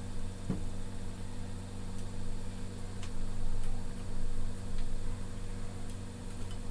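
Steady low hum with a few faint, light clicks of a small screwdriver and metal parts as an airgun's trigger mechanism is assembled.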